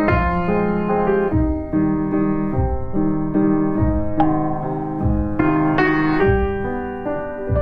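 Background piano music, a slow melody of single notes and chords.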